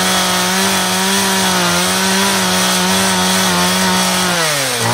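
Two-stroke chainsaw held at full throttle, a steady high engine note with a slight wobble, cutting into a chocolate Easter bunny. Near the end the throttle is released and the engine winds down, with one brief blip on the way.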